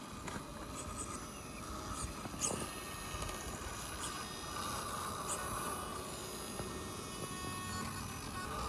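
Electric RC rock crawler's motor and gear train whining as it creeps slowly up a boulder, the whine swelling about halfway through, with scattered sharp clicks and knocks of the wheels and chassis on the rock.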